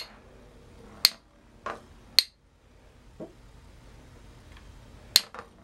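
Two Beyblade spinning tops clashing in a plastic stadium: about six sharp, ringing clacks, roughly a second apart, as they trade light hits.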